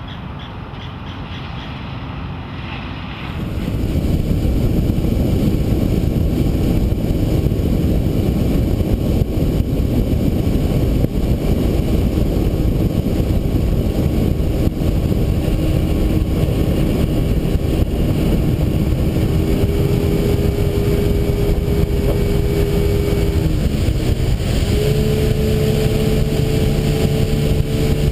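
Loud wind and water rush from a 2004 Seaswirl 2101 Striper under way, with the drone of its Yamaha 150 HP V6 outboard showing through. The engine's pitch steps up about three-quarters of the way through as the boat speeds up. The first few seconds are quieter, then the loud rush cuts in.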